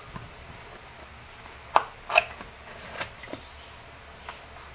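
Cardboard pistol box being handled and opened by hand, with a few sharp taps and knocks, the two loudest close together about two seconds in.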